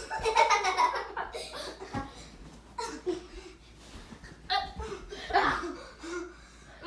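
Young boys laughing hard, with short excited cries and a few soft thuds of bodies hitting the couch and floor during rough play.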